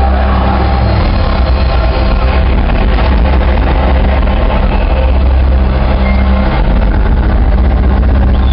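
Loud, bass-heavy rock concert sound from a festival PA, overloading the recording so that it comes through mostly as a steady low rumble with little clear melody.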